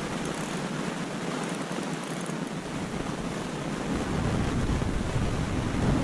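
Wind buffeting the camera microphone: a steady rushing hiss whose low rumble grows louder about four seconds in.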